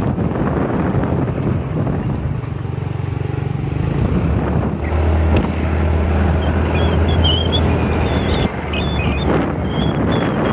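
A vehicle engine running steadily with wind buffeting the microphone; its low hum settles to a deeper, steadier note about five seconds in. Thin, wavering high chirps come and go in the second half.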